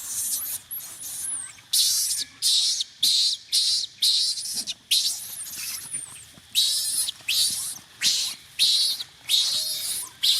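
Loud, high-pitched insect buzzing that comes in even pulses of about two a second, each lasting about half a second, from about two seconds in. A few faint thin squeaks are heard alongside it.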